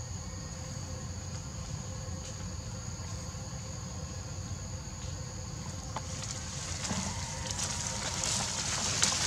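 Steady high-pitched drone of insects in the forest, two even tones held throughout. From about six seconds in, rustling and crackling of leaves and undergrowth builds up and grows louder near the end.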